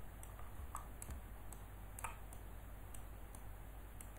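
Scattered faint clicks of a computer mouse and keyboard as vertices are selected and moved, irregular and a dozen or so over a few seconds, over a low steady hum.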